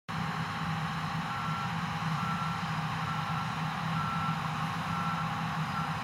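John Deere T560 combine harvester running steadily while harvesting, a low machine hum under a broad rushing noise. Over it, a high electronic warning beep sounds six times, about a second apart.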